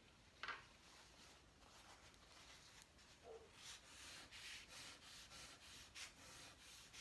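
Faint rubbing strokes of chalk on paper as a drawing is coloured in, coming about every half second from halfway through.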